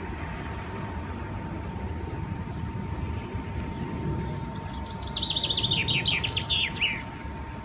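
A songbird singing a rapid trill of short chirps that steps steadily down in pitch, starting about four seconds in and lasting about three seconds, over a low steady outdoor rumble.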